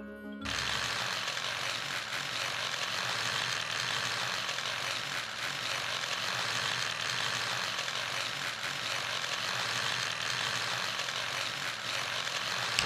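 Gear mechanism of a karakuri archer doll (Yumihiki Dōji) running steadily while the doll draws an arrow and raises its bow. It starts about half a second in and is a dense, even whirr with no pauses.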